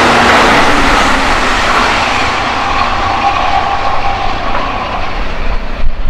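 Keihan electric train running close past on the tracks: a dense rush of wheel and running noise that slowly fades as the cars go by, with a faint steady whine through the middle.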